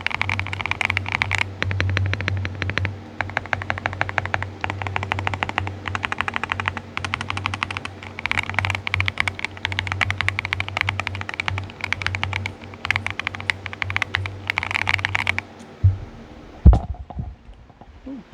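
Typing sound test on a Highground Basecamp keyboard with lubed orange switches over a metal plate and foam: rapid runs of keystrokes with short pauses between them, stopping about 15 seconds in. A few knocks follow near the end, the loudest of them louder than the typing.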